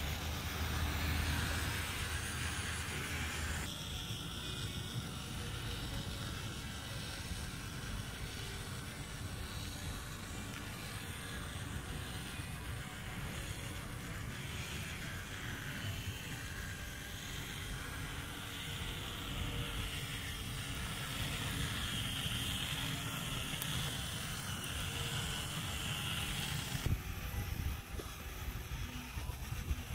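Small 6–12 V DC motors and gearing of a homemade wood-and-zinc bucket-wheel excavator model running, driving its conveyor belts and tracks, as a steady mechanical hum and rattle that changes character a few times.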